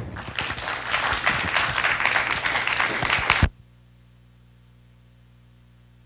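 Audience applauding in a hall, cut off abruptly about three and a half seconds in, leaving a faint steady hum.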